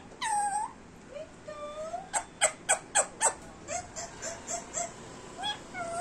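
Indian ringneck parakeet calling and mimicking: a drawn-out whining note near the start, then a quick run of five sharp chirps, then a string of short squeaky notes.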